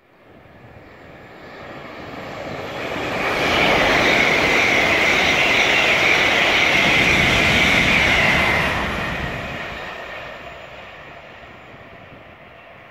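LNER Azuma (Class 800/801) express passing through the station at speed. The rush of wheels on rail swells over about three seconds, stays loud with a steady high whine for about five seconds, then fades away.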